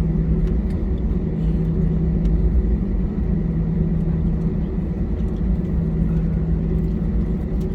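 Steady low rumble of an airliner's jet engines and airframe heard inside the cabin, with a constant hum over it, as the plane taxis after landing.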